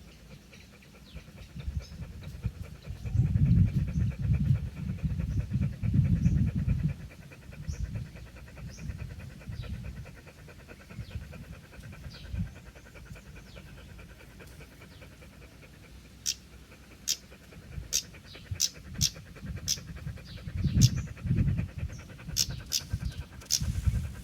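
A dog panting hard and fast to cool off in the heat, the rapid breaths coming in loud spells, strongest early on and again near the end. A run of sharp, high clicks repeats in the second half.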